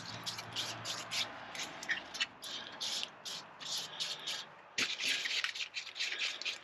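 Short rhythmic scraping strokes, about three a second, of a stick stirring together a two-part plastic repair compound, with one sharper tap just before the five-second mark.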